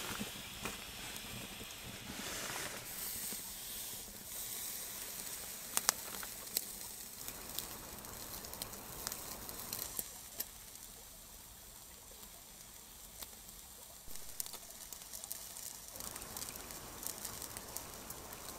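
Wood fire crackling with scattered sharp pops, over a steady hissing sizzle from skewered meat and vegetables grilling on a metal grate above it.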